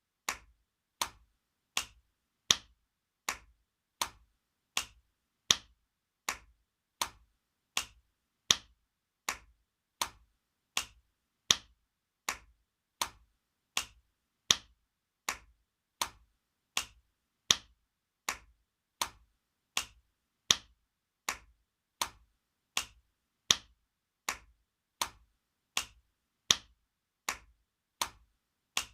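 Spanking sound effect: sharp hand slaps repeating evenly, a little more than one a second, each cut off short, with every fourth slap louder.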